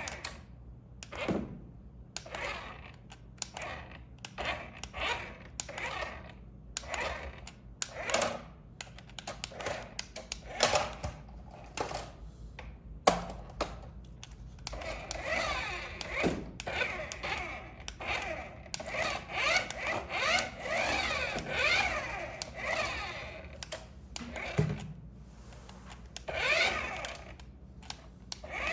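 Hands handling toy packaging and parts: irregular clicks, taps and knocks, with a longer stretch of continuous rustling and scraping in the middle.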